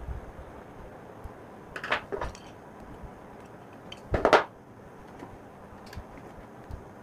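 Small handling sounds of hands working wires and a screwdriver on a plastic switch board: a few light rustles and clicks around two seconds in, and one louder short knock or clatter a little after four seconds.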